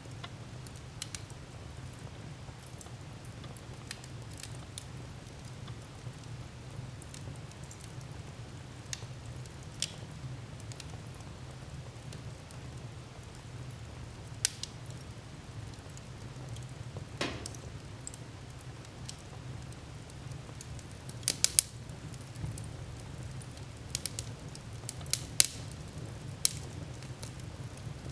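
Wood fire crackling in a fireplace: scattered sharp pops and snaps over a steady low rumble, with a quick run of louder pops about three quarters of the way in.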